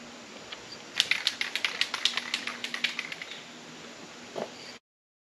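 Aerosol spray can being shaken, its mixing ball rattling in quick clicks, about seven a second for a couple of seconds. The sound then cuts off abruptly.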